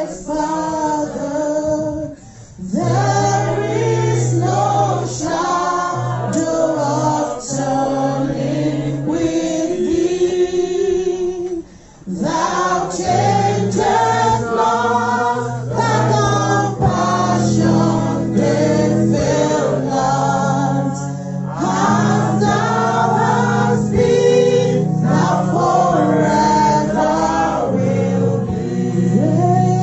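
Choir singing a gospel worship song over sustained bass notes, with two brief pauses between phrases.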